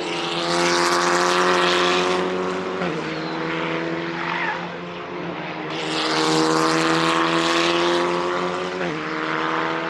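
Racing car engine under hard acceleration, its pitch climbing steadily through each gear, with a sudden drop at an upshift about three seconds in and another near the end. The sound swells loudest twice.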